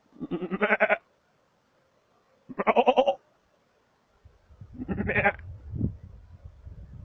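Three loud, quavering goat-like bleats about two seconds apart, used to call markhor. A low rumbling noise sets in under the third bleat and continues.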